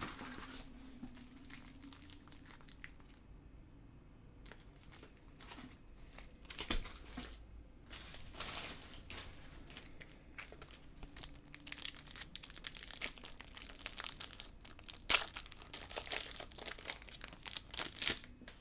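Baseball trading cards and foil pack wrappers rustling and crinkling as they are handled and sorted, in irregular bursts that grow busier in the second half, with one sharper crackle about fifteen seconds in.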